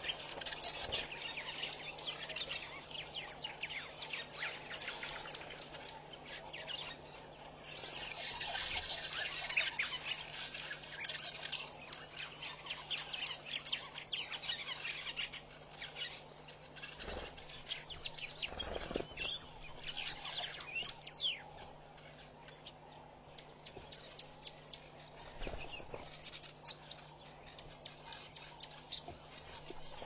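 Small birds chirping and calling around a waterhole, many short overlapping chirps going on throughout, over a faint steady low hum. A few soft low thumps come in the second half.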